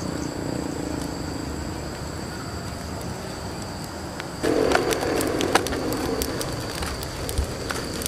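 Open wood fire crackling, which turns suddenly louder and busier with many sharp pops about four seconds in, over a steady high-pitched drone of jungle insects.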